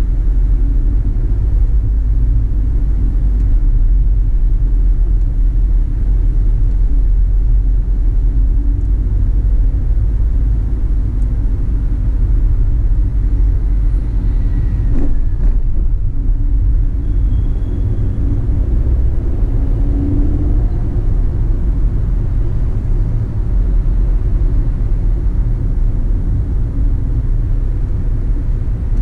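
Car driving: a steady low rumble of engine and tyres on the road, with a faint click about halfway through.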